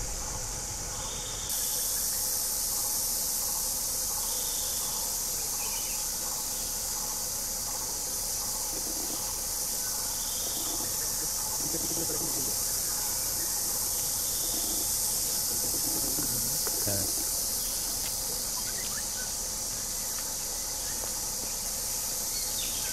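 Steady high-pitched buzzing of forest insects, with a short call repeating every four to five seconds.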